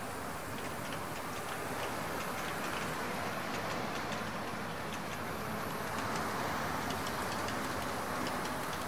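HO-scale model train of refrigerator cars rolling steadily across a wooden trestle: a constant rolling rumble with a run of light, quick clicks from the wheels passing over the rail joints.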